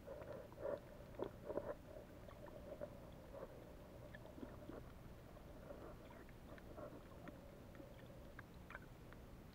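Faint, muffled underwater sound picked up by a camera held under water: a steady low hum with scattered soft clicks and ticks, and a few louder knocks in the first two seconds.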